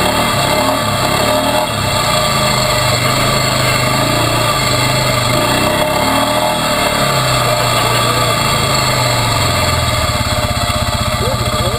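ATV engine running steadily while the quad is ridden along a dirt trail. About ten seconds in the note drops and turns into a slower, even pulsing as the engine comes down toward idle.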